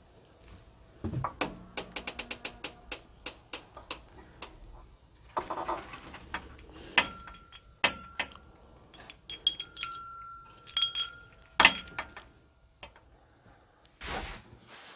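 A small brass bell hanging on a door rings several times, each strike ringing on briefly, after a quick run of clicks and rattles.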